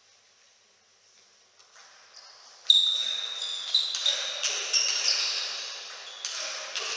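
Table tennis rally: the celluloid-plastic ball clicking sharply off the bats and table in quick succession, with high squeaks of players' shoes on the sports floor. It starts suddenly about three seconds in, after near silence.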